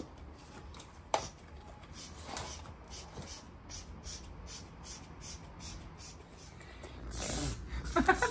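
Hand trigger spray bottle squirting onto a car's door panel in a series of short spritzes, with a sharp click about a second in. A louder rustle near the end.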